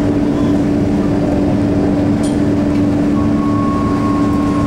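Inside the cabin of a Scania K230UB Euro V single-deck bus under way: the Scania DC9 diesel engine and ZF Ecomat automatic transmission running with road rumble and a steady hum. A faint higher whine joins about three seconds in.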